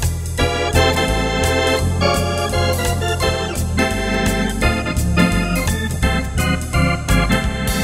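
Wersi Atlantis electronic organ played in a swing style with a drawbar (Hammond-like) sound: chords and melody on the manuals over stepping pedal bass notes, with short crisp percussive hits running through.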